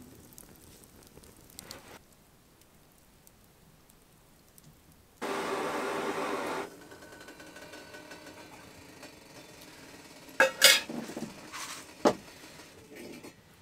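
Plastic food bag rustling and crinkling over a pot on a small camping gas stove, with a steady hiss underneath. A sudden loud stretch of rustling comes about five seconds in and lasts a second and a half. Sharp crinkles and a click follow near the end.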